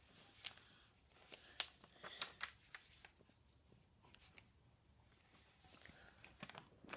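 Faint rustling and creasing of a sheet of paper being folded by hand on a tabletop, with a few scattered soft ticks.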